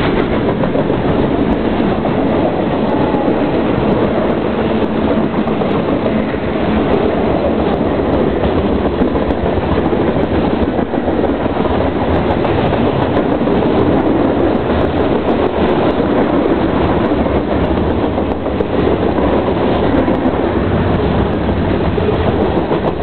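Freight cars of a BNSF manifest train rolling past close by: a loud, steady rumble of steel wheels on rail.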